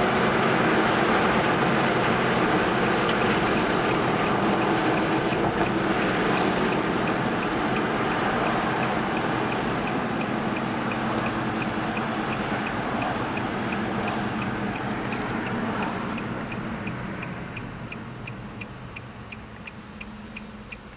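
Road and tyre noise inside a moving car, fading as the car slows. From about halfway a steady ticking comes in at about three ticks a second, typical of a car's turn-signal indicator.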